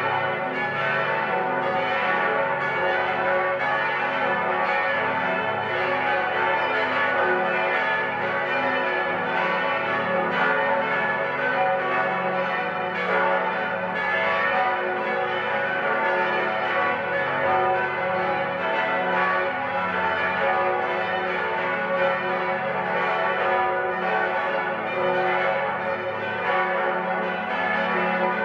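Eight large church bells, tuned F♯, A, C♯, E, F♯, G♯, A, B, swing-rung together in a full peal. Their strikes overlap into a dense, continuous ringing. The peal calls the monastery to a solemn conventual High Mass.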